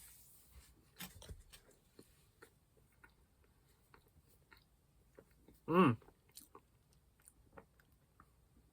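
Close-up mouth sounds of someone eating: soft chewing with scattered small clicks and smacks, a little louder about a second in. Just before six seconds in, a brief pitched hum from the eater's throat is the loudest sound.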